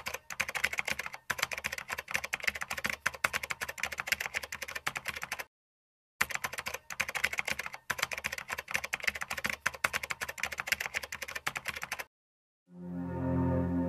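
Rapid keyboard typing clicks in two runs of about six seconds each, with a brief silent pause between them, as text is typed out on screen. Soft ambient music with piano begins near the end.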